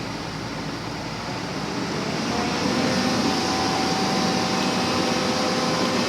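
Backhoe engine running under load, growing louder about two seconds in, with a faint steady whine over the engine noise.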